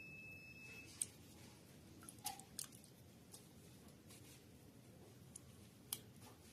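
Near silence, broken by a handful of faint, sharp clicks, with a brief steady high tone in the first second.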